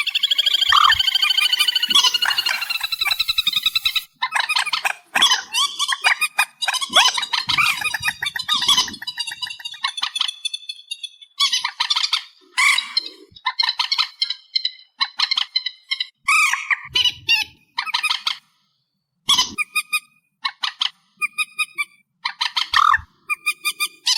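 Amplified lure recording of trích ré marsh birds calling: loud, harsh, squawking calls in rapid series. The calls are densest in the first few seconds, then come in short bursts with gaps, and there is a brief pause past the three-quarter mark.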